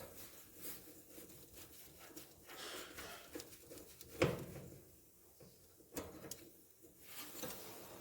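Light clatter and scraping of dryer parts being handled during servicing, with a sharper knock about four seconds in and another around six seconds.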